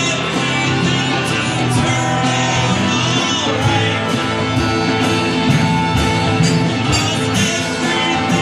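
Live rock band playing a song: guitar and singing over a steady beat.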